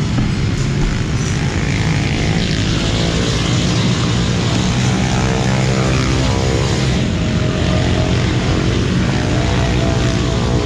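Small motorcycle engine of a 116cc drag-tuned underbone bike, running steadily without revving while it is being set up.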